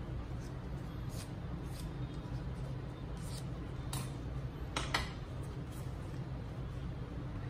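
Small pieces of paper being handled, pressed and folded on a tabletop: a few brief, light rustles and taps, the loudest a short crinkle about five seconds in, over a steady low hum.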